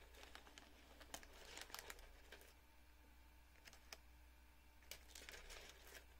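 Faint rustling and scattered light clicks of hands handling a prayer-rope cord, over a low steady hum.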